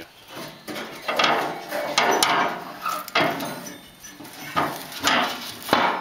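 Rusty steel lid of a barrel grill being lowered and shut, with a series of metal clanks and scrapes.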